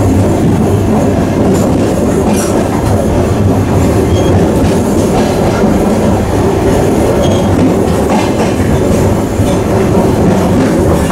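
Running noise inside a coach of an ER2T electric multiple-unit train: a steady low rumble of the wheels and running gear on the rails, with a few faint clicks along the way.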